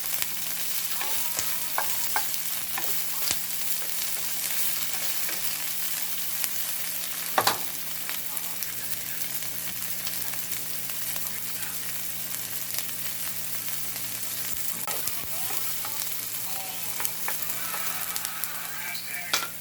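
Shrimps and bell pepper sizzling steadily in a hot pan as they are stir-fried, with a utensil clicking and scraping against the pan now and then and one louder knock about seven seconds in.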